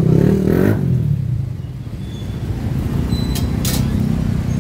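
Street traffic: a motor vehicle's engine running close by fades about a second in, leaving a steady low rumble, with two short sharp clicks near the end.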